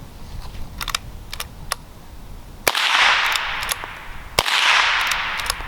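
Winchester Model 94 .22 lever-action rifle fired twice from the hip, the shots about a second and a half apart, each followed by about a second of echo. Light clicks come before and between the shots as the lever is worked.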